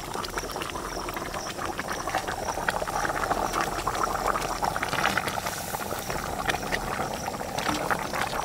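Curry gravy bubbling in a steel wok on a gas stove, a steady crackle of popping bubbles, while whole fried chickens are laid into it with steel tongs that click against the pan.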